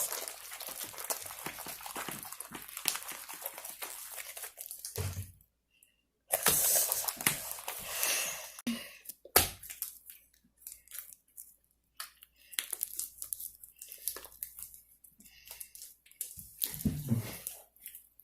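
Slime freshly firmed with activator being squished and pulled in the hands: dense crackling and squishing for about five seconds, then again after a brief pause, followed by scattered pops and clicks.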